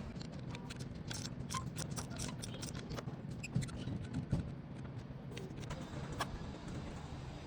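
Faint scattered clicks and light scraping, like small hard objects being handled, over a low steady hum. The clicks come thickest in the first half, with a couple of louder ones in the middle.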